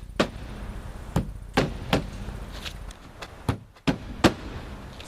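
Roofing nails being hammered through tarpaper felt into the roof deck: about five sharp, separate strikes at an uneven pace, two of them in quick succession.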